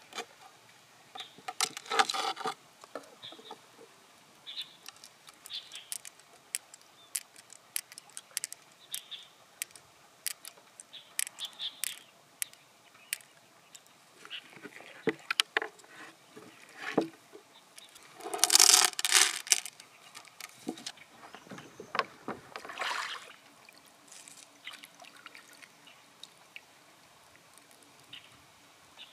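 Freshwater mussel being opened and searched for pearls: a knife and gloved fingers scraping inside the shell and squishing the wet flesh, with many sharp clicks as pearls knock against each other and the shell. A few louder, longer scrapes come through, the loudest a little past halfway.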